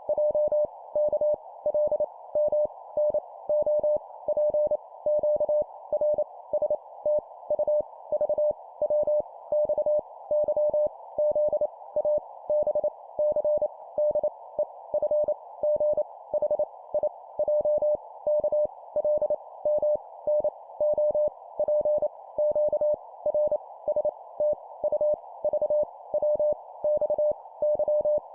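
Morse code (CW) sent at 25 words per minute: a single steady beep keyed on and off in short and long elements, spelling out random letters. A continuous band of hiss sits behind it.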